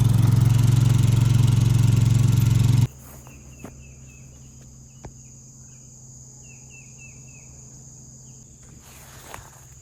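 A loud, steady engine running with a low hum, cut off abruptly about three seconds in. After it, quiet outdoor ambience: a steady high insect drone and a run of short bird chirps.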